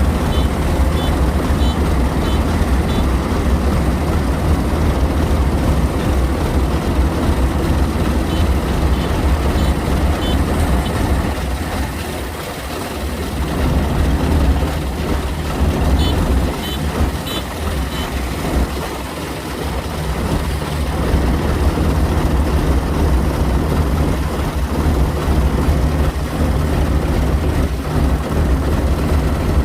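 Kubota 105 combine harvester's diesel engine running steadily under load while it cuts rice, a deep continuous drone. Short runs of high beeps sound a few times.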